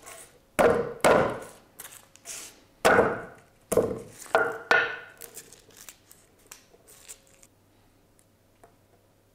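Wooden pestle end knocked down on garlic cloves on a wooden chopping board, crushing them to loosen the skins: a series of sharp knocks, most of them in the first five seconds. Then only faint clicks as a clove is peeled by hand.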